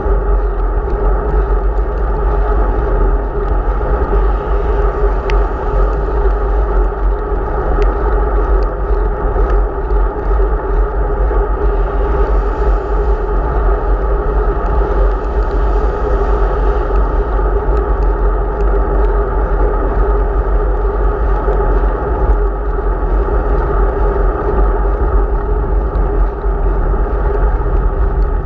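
Steady wind buffeting and road rumble on a cyclist's camera microphone while riding on a wet road, muffled above the mid range. Overtaking traffic, a car and a lorry, swells in about twelve to seventeen seconds in.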